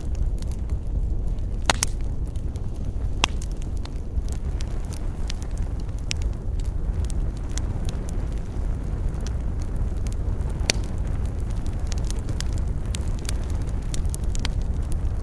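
Wood campfire crackling, with scattered sharp pops, a few louder ones standing out, over a steady low rumble.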